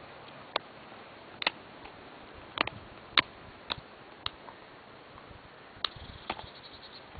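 Estrela Mountain dog gnawing a raw bone: sharp crunches and clicks of teeth on bone at uneven gaps, the loudest about three seconds in, with a quick run of finer ticks near the end.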